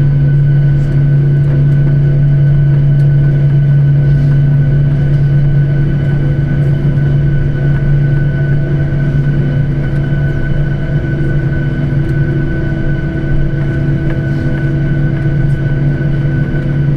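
Steady drone inside an airliner's cabin: a strong low hum with a few steady whining tones above it, holding level throughout.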